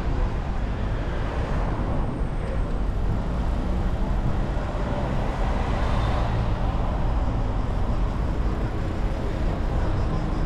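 Road traffic heard from a moving bicycle: a steady hum of passing cars, swelling about halfway through.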